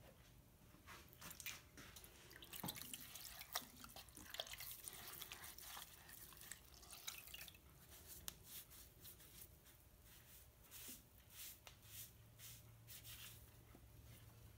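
Faint wet sounds of hands and a sponge wiping clay slip off a pottery wheel head: scattered dripping and soft squelching, with irregular small clicks.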